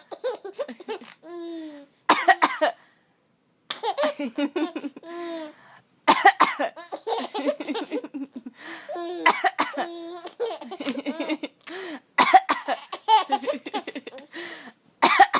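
A young child coughing in short bouts, mixed with laughter, several times over with brief pauses between bouts.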